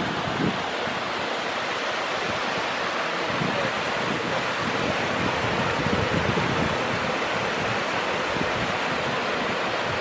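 Waterfall rushing steadily, thin streams of water splashing down a rock face into a pool, with wind buffeting the microphone in uneven low rumbles.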